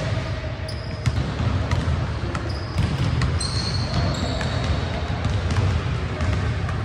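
Soccer ball being kicked and bouncing on a hard gym floor during an indoor game, a scatter of sharp knocks echoing in a large hall, with several short high squeaks of shoes on the floor.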